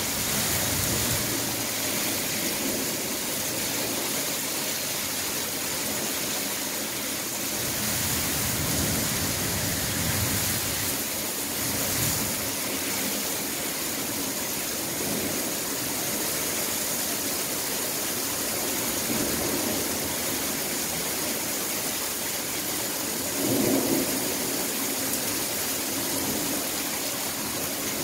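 Thunderstorm downpour: heavy rain falling steadily, with low rolls of thunder now and then and a brief louder swell near the end.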